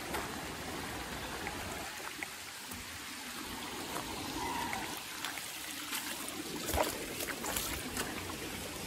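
Stream water trickling and flowing over rocks, a steady wash, with a few faint knocks between about six and eight seconds in.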